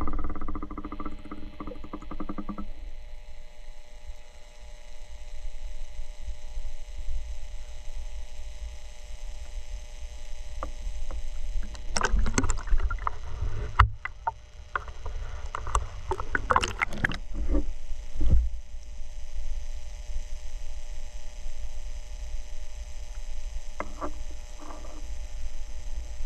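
Muffled low rumble of seawater around a submerged action camera, with a faint steady hum. The water splashes and sloshes around 12 seconds in and again around 16 to 18 seconds as the camera breaks the surface, with two smaller splashes near the end.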